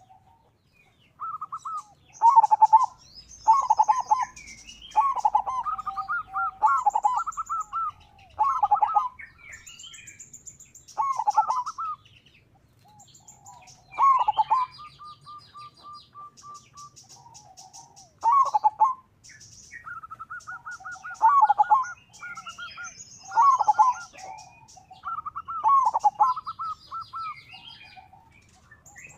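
Zebra dove (perkutut) singing its staccato cooing song in repeated phrases a few seconds apart. Smaller birds chirp and trill higher up in between.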